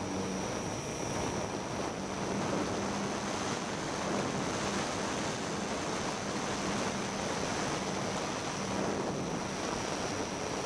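Steady rushing wind buffeting the microphone of a camera carried through the air, with a faint, steady high-pitched whine over it and a faint low hum that comes and goes.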